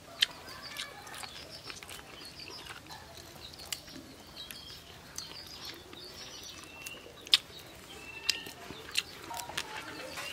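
A person eating with his hands: scattered wet smacks and sucking clicks from chewing steamed goat-head meat, a few of them sharp and loud. Small birds chirp faintly in the background.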